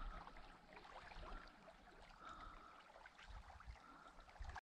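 Near silence: faint lakeshore ambience with a light low wind rumble and small water ticks from ripples at the shore, a faint short high note coming four times. The sound cuts off abruptly near the end.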